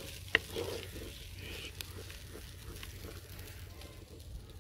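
Masala with crushed ginger and garlic sizzling faintly in oil in a kadhai, with a sharp click of a spoon on the pan early on and light ticks of stirring.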